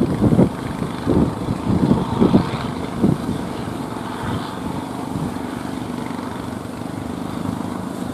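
Strong wind buffeting the microphone in irregular low thumps for about the first three seconds, then a steadier rushing, over the noise of breaking surf.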